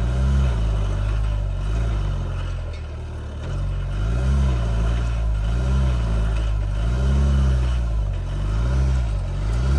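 A SAIC Maxus pickup's engine revs in repeated surges, rising and falling about once a second, with a lull around the middle. The pickup is stuck in deep mud and its wheels are slipping.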